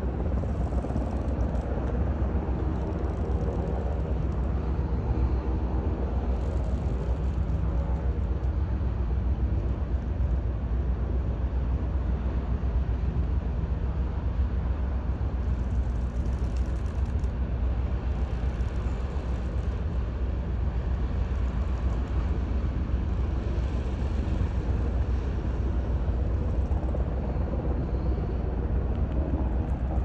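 Steady deep rumble of a large container ship's engines as it passes close by.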